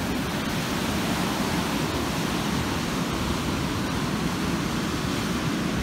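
Ocean surf breaking and washing up the shore in a steady, unbroken rush.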